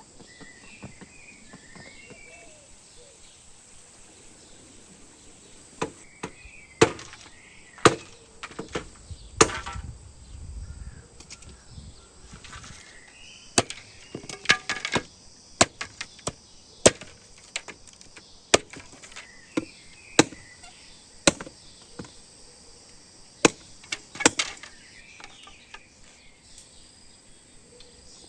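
Wood being chopped with a blade: sharp, irregular chops, roughly one a second, beginning about six seconds in. Birds chirp and insects buzz behind them.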